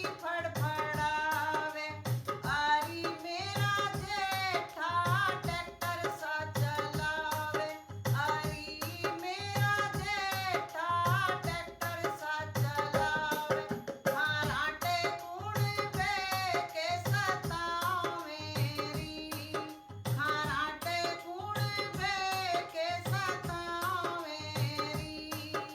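Hindi folk song: a woman singing a wavering melody over a hand drum keeping a steady beat.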